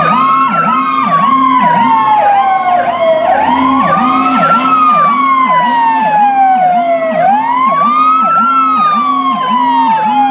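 Emergency vehicle sirens from a police SUV and a ladder fire truck sounding together. A slow wail rises and falls about every four seconds over a faster warbling yelp.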